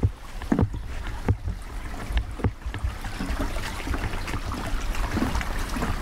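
Walking footsteps, the first ones thudding on a wooden boardwalk, under a low rumble of wind on the microphone and a steady rushing haze from the stream.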